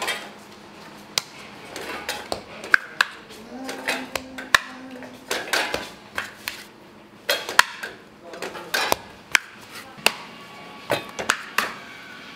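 Metal dough scraper chopping through dough and knocking on a marble counter, and dough pieces dropped into the metal pan of a balance scale, giving irregular sharp clacks and clanks.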